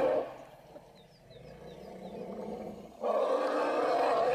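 Elephant trumpeting: a loud blare cuts off just after the start, and another breaks in suddenly about three seconds in. Between them is a quieter stretch with a few faint, short, high chirps.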